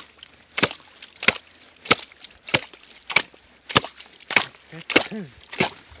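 Steel ice chisel chopping at the ice around a hole cut through thick lake ice: about nine sharp strikes, evenly spaced at roughly one and a half a second.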